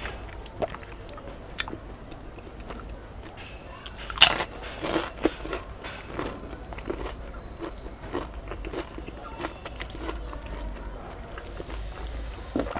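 Close-up eating sounds of a person chewing a mouthful of rice and curry, with small clicks and smacks, and one loud crunchy bite about four seconds in.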